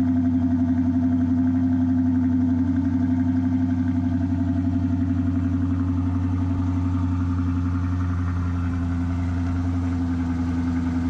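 Car V8 engine running at a steady speed, an even low engine tone that eases slightly near the end.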